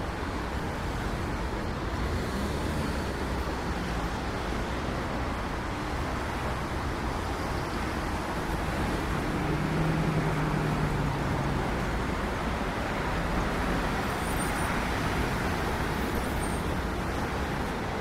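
Steady city street traffic noise, with one vehicle's engine hum rising and passing around the middle.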